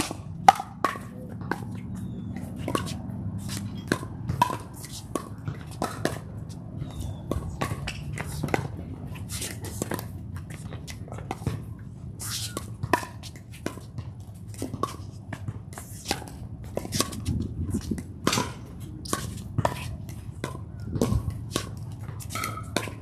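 Pickleball paddles striking a plastic ball during a doubles rally: a string of sharp pops at irregular intervals, often less than a second apart, over a steady low rumble.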